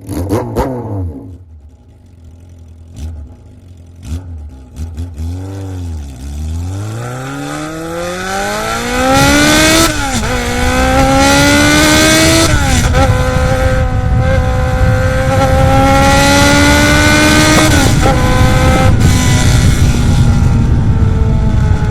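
Kawasaki Z400FX's air-cooled inline-four engine heard through a Kamikaze 4-into-1 collector exhaust. It gives a few short throttle blips, then accelerates with a rising note, drops in pitch at two upshifts, and settles into a steady, slowly rising note at cruising speed.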